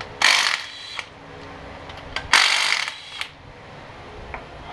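Cordless impact wrench run in two short bursts, the second starting about two seconds after the first, working bolts on a tractor engine, with a few small metal clicks between them.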